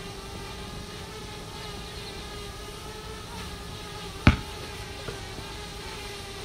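DJI Mavic Air quadcopter hovering, its propellers giving a steady buzzing hum. A single sharp thump about four seconds in.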